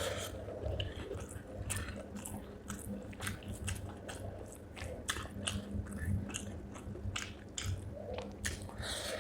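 Close-up chewing and biting of spicy chicken feet, with many irregular crisp clicks and crunches as the skin and cartilage are bitten.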